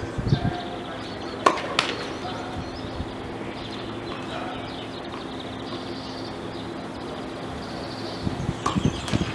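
Tennis balls being bounced on a hard court and struck with rackets. There are two sharp hits about a second and a half in, and a run of low thuds and hits near the end, over a steady faint hum.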